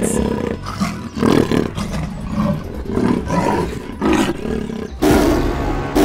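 A series of big-cat roars from a lion and a tiger, over background music. The loudest roar starts about five seconds in.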